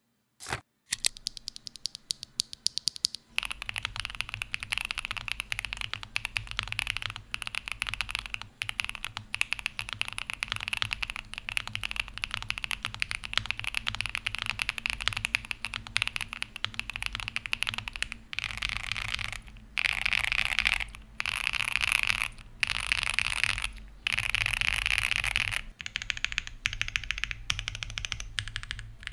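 Typing on a mechanical keyboard fitted with Akko x MonsGeek Green Fog switches: a fast, continuous stream of keystroke clacks. In the second half the typing comes in bursts of a second or two, with brief pauses between them.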